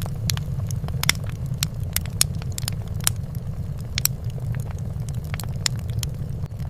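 Fireplace crackling: irregular sharp pops and snaps, several a second, over a steady low rumble.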